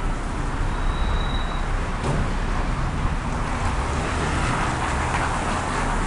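Otis traction elevator running: a steady low rumble and hum of the car travelling, with a single click about two seconds in and a hiss building in the last couple of seconds.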